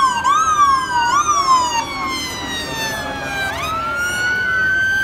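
Two police sirens sounding together: a slow wail that rises and falls, overlapped by a faster sweep that rises and falls about three times in the first two seconds and then fades. The wail climbs again a little past halfway.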